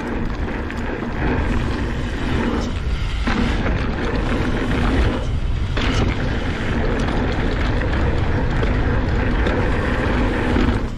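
Mountain bike riding fast down a dirt jump line: a steady rush of wind on the body-mounted camera mixed with tyres rumbling over the dirt. The rumble drops away briefly twice, about three and five and a half seconds in.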